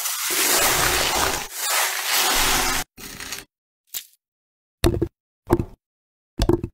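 A big kitchen knife cutting through a watermelon: two long, crisp crunching cuts through the flesh and rind in the first three seconds. Then a few short, separate knocks and plops as pieces of fruit are lifted and dropped.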